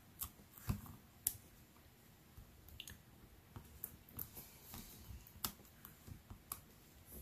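Faint, scattered clicks and light taps of a plastic pick tool and card stock as small foam adhesive dimensionals are pressed onto the back of a paper card panel.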